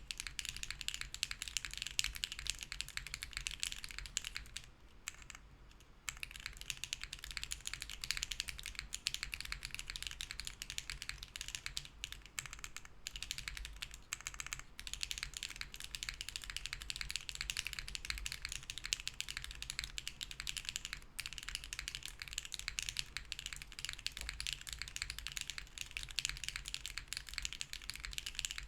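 Continuous fast typing on a Hera R2 mechanical keyboard with BSUN Bunny switches, a POM plate, no foam, TX stabilizers and GMK keycaps: a dense run of keystrokes that pauses briefly about five seconds in.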